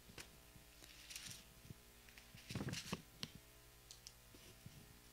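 Near silence: a few faint rustles and clicks of paper pages being handled close to a handheld microphone, over a low electrical hum.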